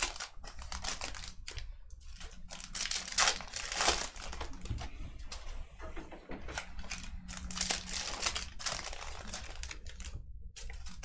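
Trading card pack wrappers crinkling and tearing as packs are opened and handled, in a run of irregular rustles.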